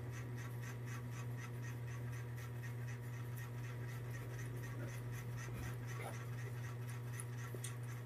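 A small machine running: a steady low hum with a fast, even ticking, about four or five ticks a second.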